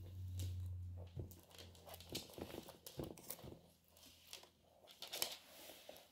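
Argentine black-and-white tegu walking on a laminate floor, its claws giving a scatter of light, irregular clicks and scrapes. A low hum stops about a second in.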